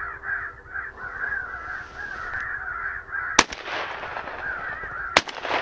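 An electronic crow caller plays a steady stream of crow caws. About three and a half seconds in, and again under two seconds later, two loud shotgun blasts are fired at a crow flying overhead.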